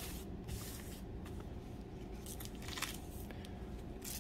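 Thin Bible paper rustling as a hand smooths and turns the pages, in a string of short dry swishes.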